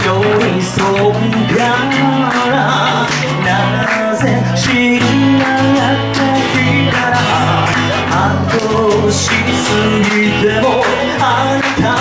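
A band playing a live cover of a Japanese kayōkyoku pop song: a vocal melody over guitar and a steady bass line, with an even strummed rhythm.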